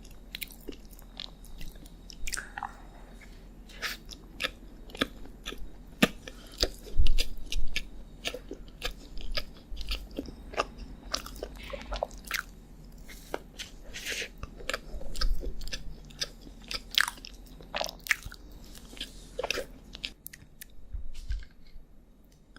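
Close-miked chewing and biting of a chocolate dessert: many sharp, irregular crunchy clicks and mouth noises, thinning out near the end.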